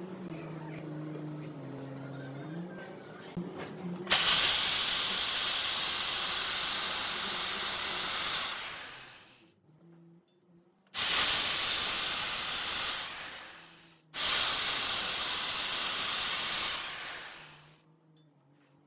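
Compressed air hissing from a nozzle in three long blasts, each several seconds long and tailing off at the end.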